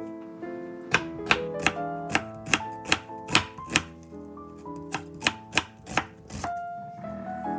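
Kitchen knife slicing an onion into strips on a wooden cutting board: a run of about a dozen sharp knocks, two to three a second, with a short pause midway. Background music plays under it.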